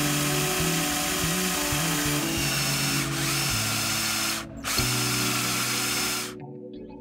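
Power drill boring into a mahogany board with a 20 mm Forstner bit, running steadily with a brief break about four and a half seconds in, then stopping shortly before the end. Background music plays underneath.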